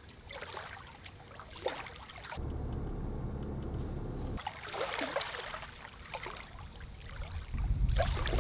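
Small waves lapping and trickling over the edge of a paved causeway road as the rising tide covers it. A steady low rumble joins for about two seconds a little after two seconds in, and again near the end.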